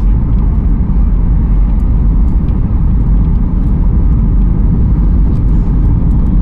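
Steady, loud cabin rumble of a Boeing 737 MAX 8 on low approach: its CFM LEAP-1B engines and the airflow over the fuselage, heard inside the cabin at a window seat over the wing.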